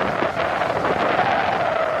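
Wind buffeting the microphone over a steady rush of road traffic.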